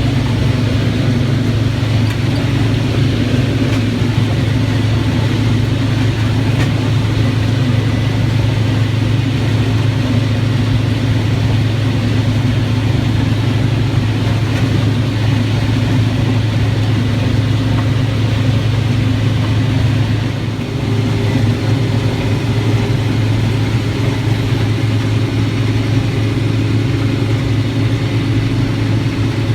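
A harvest machine's engine running steadily at constant speed, a deep continuous drone, with a brief drop in level about twenty seconds in.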